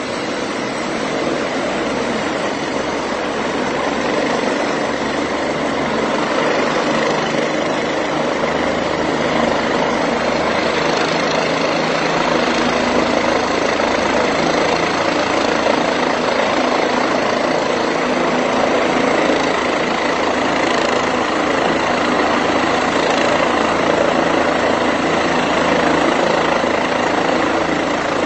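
Medical helicopter running on the pad with its rotor turning: a steady turbine whine over rotor noise, growing a little louder over the first several seconds, then holding.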